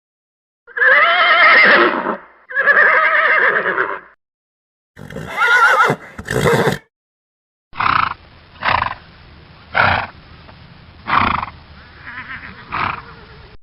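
Horse whinnying: two long, wavering whinnies, then two shorter ones. After that, five short calls about a second apart over a steady background hiss.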